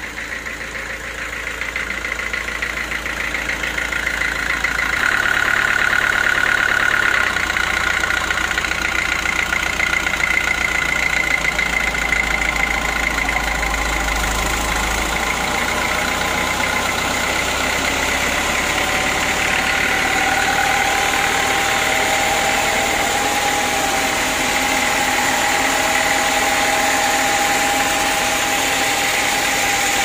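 Homemade band sawmill running: a steady machine drone with a high whine from the blade, growing louder over the first few seconds and then holding.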